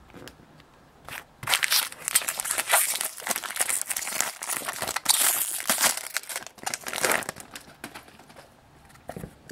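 Foil wrapper of a Topps baseball card jumbo pack being torn open and crinkled by hands. It starts about a second and a half in and dies down near the end.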